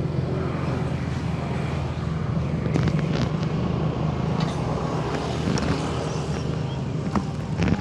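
An engine running steadily with a low, even hum, against outdoor background noise, with a few light clicks.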